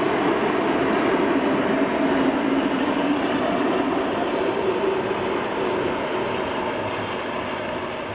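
DRB1M diesel train with its 2M62U locomotive section running along the track: steady rumble of wheels on rail mixed with the locomotive's diesel engine. A short high squeal comes about four seconds in, and the sound fades over the last few seconds as the train draws away.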